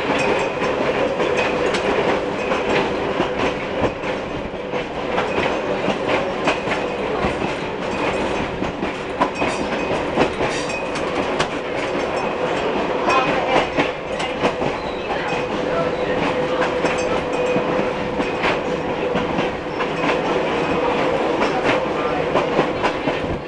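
Interior of New Orleans Public Service streetcar 832 running along the track: a steady hum with frequent clicking and rattling from the wheels and car body.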